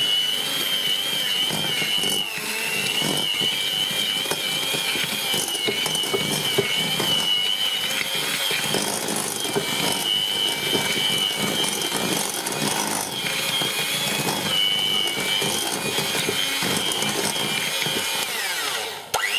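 Electric hand mixer running with a steady high whine, its beaters creaming butter and sugar in a bowl for a cake batter.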